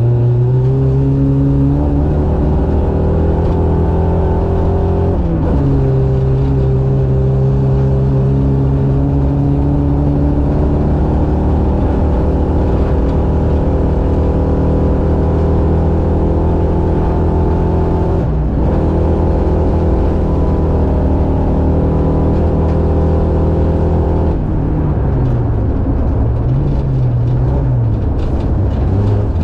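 Buggy's Suzuki GSX-R 600 four-cylinder motorcycle engine running hard at a fairly steady pitch. There are brief breaks near 5 and 18 seconds in. In the last five seconds the pitch falls and rises several times.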